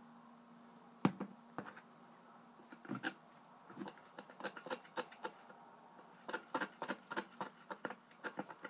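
A small jar set down on a tabletop with a sharp knock about a second in, then a thin stick clicking and scraping irregularly against the cup as nail polish and olive oil are stirred together.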